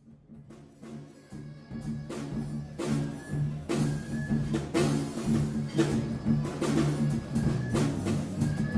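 Instrumental music intro fading in: a steady drum beat over a bass line, growing louder over the first two seconds and then holding.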